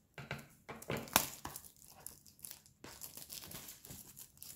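Clear plastic shrink-wrap being torn and pulled off a cardboard box, crinkling and crackling irregularly, with one sharper crackle about a second in.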